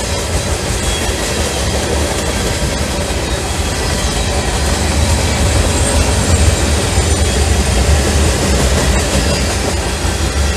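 Freight train's covered hopper cars rolling past: a steady, loud rumble of steel wheels on rail with clickety-clack over the joints, and faint high wheel squeals now and then.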